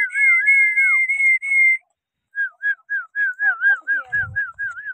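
Whistling: two high warbling tones held together for about two seconds, then, after a short break, a run of short wavering notes at about three a second. A brief low thud sounds about four seconds in.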